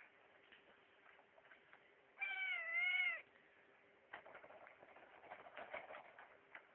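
A grey tabby kitten mewing once, a call about a second long that wavers in pitch. It is followed by a couple of seconds of scattered clicks and rustles.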